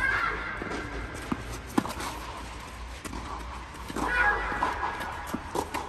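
Tennis ball being hit with rackets and bouncing on a clay court during a rally: a few sharp knocks, one loudest about two seconds in, over a steady low hum.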